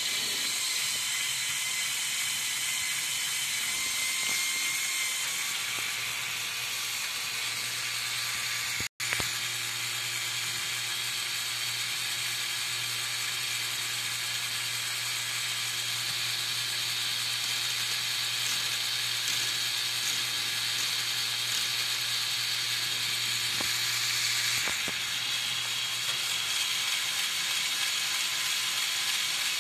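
Lego Technic 8258 crane truck's electric motor and plastic gear train whirring steadily with a ratcheting rattle as the crane works. A low hum joins about six seconds in and stops around twenty-five seconds in, and the sound cuts out for an instant about nine seconds in.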